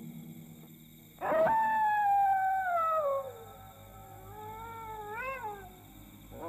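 A dog howling: one long howl that starts about a second in and slides slowly down in pitch, then a fainter, wavering howl near the five-second mark.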